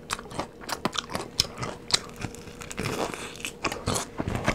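A person biting and chewing crispy fried chicken, the batter crunching in many irregular crackles.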